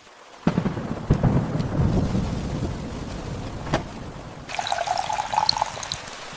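A thunderclap breaks suddenly about half a second in and rumbles for a couple of seconds over steady rain, with a sharp crack of thunder just before four seconds.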